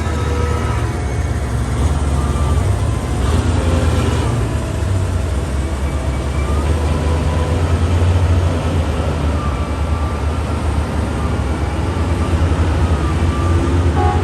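Heavy vehicle engine running steadily with a deep rumble.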